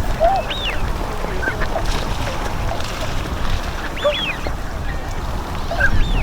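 A flock of Bewick's swans calling: scattered short honking calls, with higher, arched calls about half a second in, around four seconds in and near the end, over a steady low rumble.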